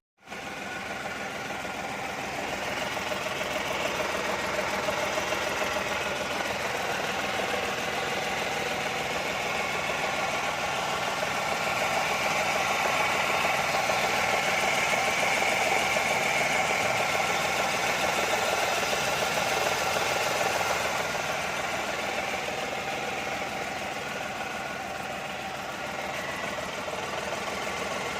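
Renault Kwid's three-cylinder petrol engine idling, with a steady bearing noise from the alternator that the mechanic diagnoses as a worn alternator bearing rather than the clutch release bearing the customer suspected. The sound grows louder over the first few seconds, is strongest in the middle, and eases slightly near the end.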